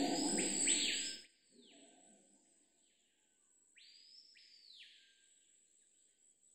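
Bird calls: a few descending calls, loud in the first second over a noisy background that cuts off abruptly. Two fainter calls follow in the middle.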